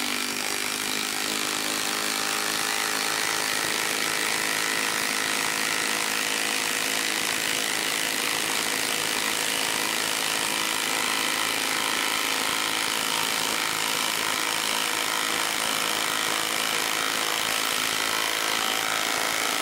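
Milwaukee M18 2960-20 impact wrench hammering steadily as it drives an 8-inch lag screw into a wooden stump. Its anvil strikes almost every time without skipping.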